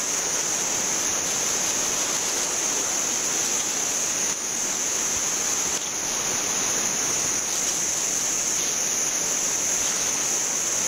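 Steady forest ambience: a constant high-pitched insect drone over an even rushing hiss like distant surf.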